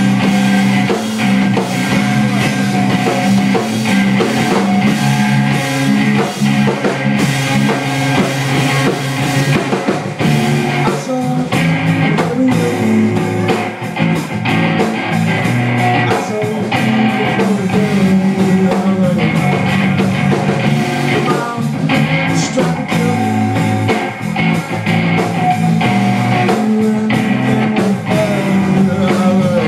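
A live rock trio playing loudly and without a break: a drum kit, an electric bass and an electric guitar.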